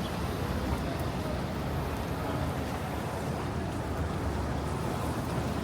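Steady outdoor city street noise: a low traffic rumble under an even hiss.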